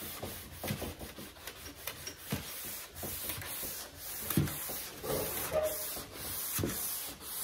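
Sandpaper rubbed by hand over a primed steel truck panel in repeated strokes, a rough scratching that rises and falls with each pass: block-sanding high-build primer.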